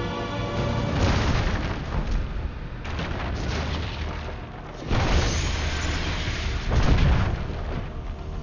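A wooden sailing warship being blown apart by cannon fire: a run of heavy explosions, the loudest about one, five and seven seconds in, with a smaller blast near three seconds, over an orchestral film score.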